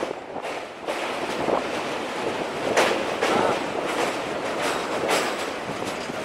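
Electric express train running at speed on Indian Railways track: a continuous rumble with repeated clacks as the wheels pass over rail joints.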